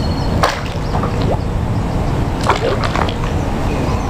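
Hooked bass splashing and thrashing at the water's surface beside a kayak as it is reeled in, with short sharp splashes about half a second in and again around two and a half seconds in, over a steady low rumble.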